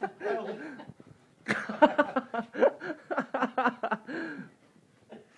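Indistinct raised voices, with a short break about a second in, dying away near the end.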